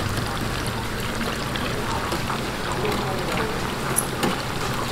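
Batter-coated vegetable fritters deep-frying in a basket fryer: a steady sizzle of bubbling oil with small crackles, and a sharp click about four seconds in.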